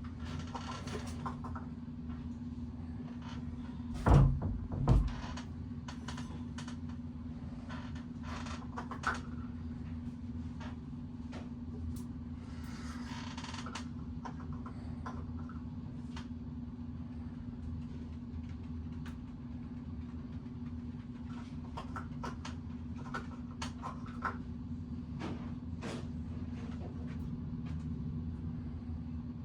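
Hands-on bicycle repair work: scattered small clicks and knocks of parts and tools, with two loud thumps about four and five seconds in, over a steady low hum.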